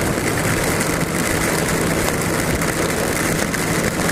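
1999 Yamaha YZF600R's inline-four engine running steadily at cruising speed under heavy, even wind rush on the microphone.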